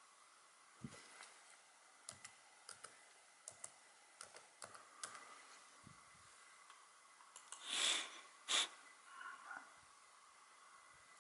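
Computer keyboard keys pressed one at a time in short runs of clicks while a password is typed. About eight seconds in come two louder rushes of noise, a longer one and then a short sharp one.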